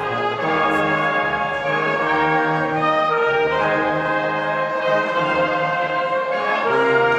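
Wind band of trumpets, trombones and clarinets playing held chords over a moving bass line.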